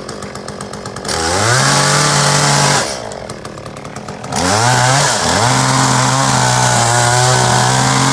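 Two-stroke chainsaw idling, then revved up to full throttle and held for about two seconds, dropped back to idle, and revved to full throttle again for the rest, cutting off suddenly at the end.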